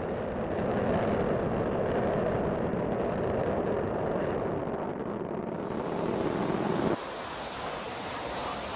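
Rocket launch noise: a steady, deep, rushing rumble. About seven seconds in, the deep part cuts off suddenly, leaving a quieter, thinner hiss.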